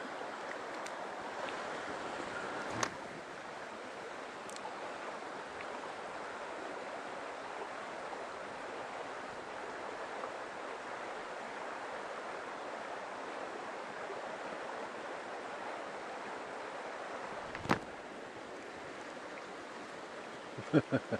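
Mountain stream water rushing steadily, with two sharp clicks, one about three seconds in and a louder one near the end.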